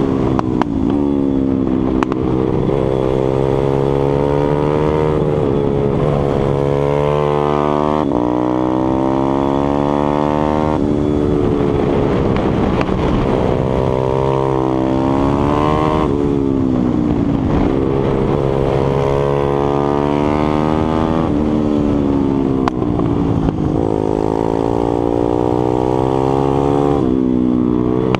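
Onboard sound of a Stomp 140 pit bike's 140cc single-cylinder four-stroke engine at full race pace, its pitch climbing under throttle and dropping sharply at each gear change. It falls away more slowly where the bike brakes into corners, then climbs again, several times over.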